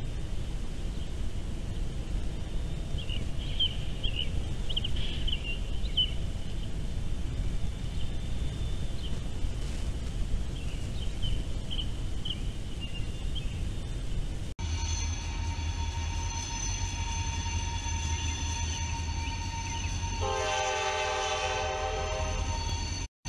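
Freight train rolling past with a steady low rumble, a few short bird chirps over it. After a sudden cut about fifteen seconds in, a diesel locomotive drones steadily and sounds its horn once, a loud chord held about two seconds, near the end.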